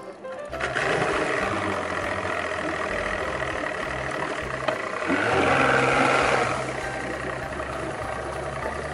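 Mercury outboard motor running as the bass boat backs off its trailer. It comes in suddenly about half a second in, and swells louder for a second or two around the middle as the propeller churns the water.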